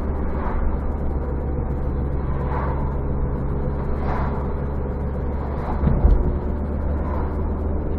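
Car driving: steady engine and road noise, with a short, loud thump about six seconds in.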